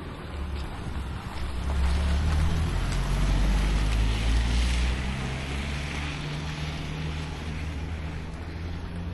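A motor vehicle passing on the street: a low engine rumble with tyre and road hiss that swells about two seconds in and fades after about five seconds.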